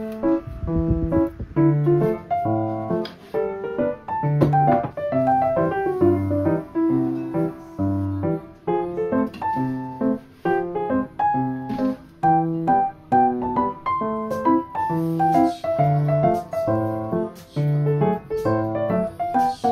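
Background piano music: a steady run of notes, a melody over repeated low bass notes.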